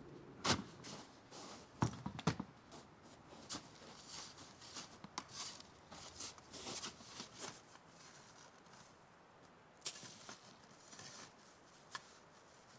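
Irregular faint knocks, clicks and rustles, with the sharpest knocks at about half a second in and twice around two seconds in.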